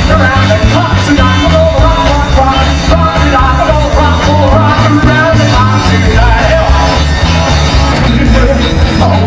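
Live rock band playing loud and steady: electric lead and rhythm guitars, electric bass and a drum kit.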